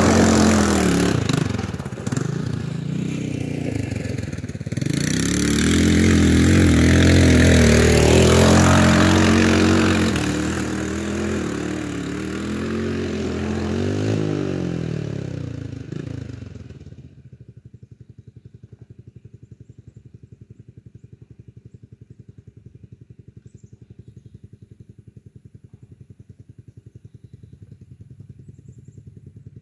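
Sport quad's engine revving hard, its pitch rising and falling with throttle and gear changes, with dirt spraying from the rear tyres at the start. The sound fades as the quad pulls away. About 17 s in it drops suddenly to a faint, steady idle.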